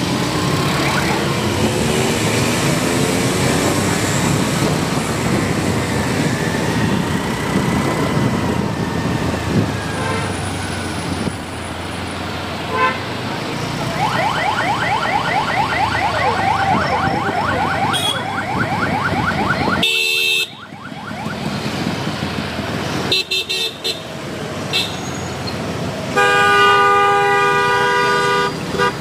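Busy street noise of slow-moving cars with voices in the background and car horns sounding. About halfway through, a rapidly repeating rising electronic tone sounds for several seconds, and near the end a loud steady car horn blares for a few seconds.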